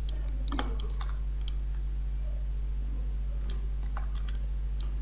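Scattered clicks of a computer mouse and keyboard, in a cluster about half a second to a second and a half in and another around four seconds in, over a steady low hum.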